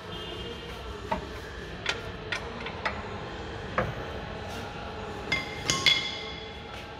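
Irregular sharp metallic clinks and knocks, about eight, a few ringing briefly, as a front CV drive axle is worked into position against the hub and suspension parts. The loudest clinks come in a quick cluster near the end.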